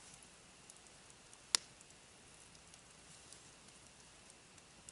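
Small wood campfire crackling faintly with scattered soft ticks, and one sharp pop about a second and a half in.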